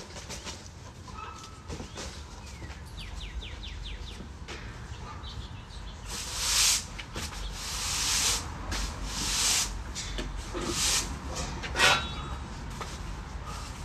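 Small birds chirping, with a quick run of falling chirps about three seconds in. Midway there is a series of short, loud hissing scrapes, and a sharp knock near the end.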